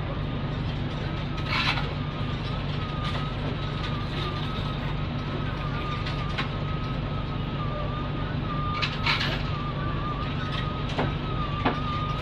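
Nissan Diesel K-U31L bus's PE6H diesel engine idling steadily, heard from inside the cabin, with a steady high whine over it. Two short hisses come about a second and a half in and about nine seconds in, and a few clicks near the end.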